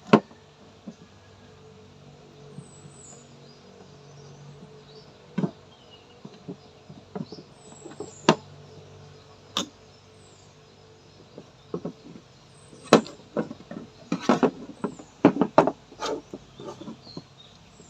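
Scattered sharp clicks and small knocks from wires being fitted to a convenience outlet's terminals, with a quick run of clicks about three-quarters of the way through.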